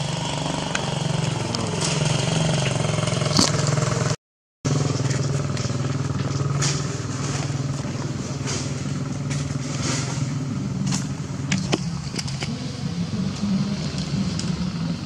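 A motor engine running steadily, a low hum that wavers slightly in pitch, with scattered clicks and rustles over it. The sound drops out completely for a moment about four seconds in.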